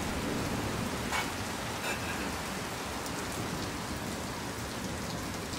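Steady rain falling in a rainstorm, pattering on the cottage and its window.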